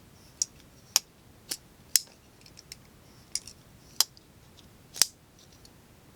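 Steel Will Tasso folding knife with an ant lock being opened and closed one-handed: a series of sharp metallic clicks as the blade snaps open and the lock engages and releases, about seven in all, the loudest about 1, 2, 4 and 5 seconds in.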